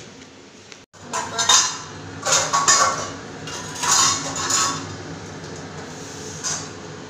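A metal spatula clinking and scraping against a stainless-steel karahi as thick chicken curry is stirred, in several clattering bursts.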